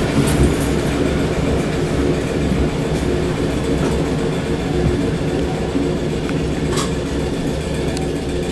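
Cabin sound of a British Rail Class 455 electric multiple unit moving slowly along a platform: a steady low rumble of wheels on rail, with a couple of sharp clicks near the end.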